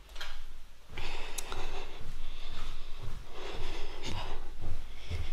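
A woman's breathing close to the microphone, heard in soft swells, with low knocks of handling and steps.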